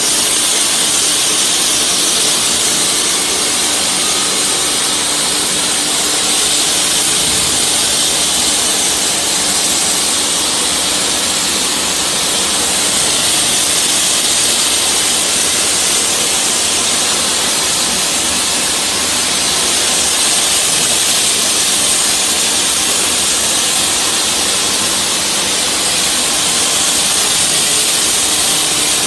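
CNC hot spinning machine forming a red-hot workpiece: a loud, steady hiss from its heating torch flame over a steady machine hum, with no separate knocks or strokes.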